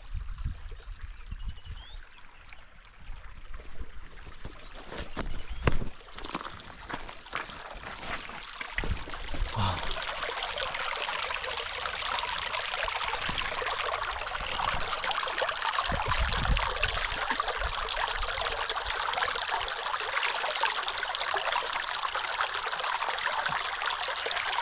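Shallow river running over stones, an even rushing of water that comes up strongly about ten seconds in and holds steady. Low thumps and knocks in the first part.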